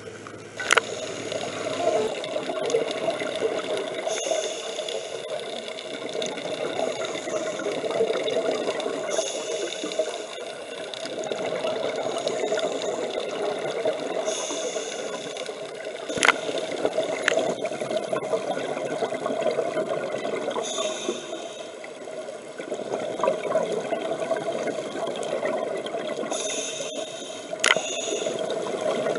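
Muffled underwater water noise picked up by a camera on a scuba dive, with short bursts of hiss every few seconds and a few sharp clicks.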